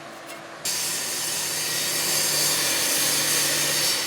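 A power tool switches on just under a second in and runs steadily with a loud, high hiss.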